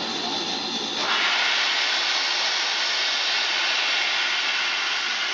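Steam locomotive, the BR Standard 2-6-4T tank engine, letting off steam at a standstill: a loud, steady hiss that starts about a second in.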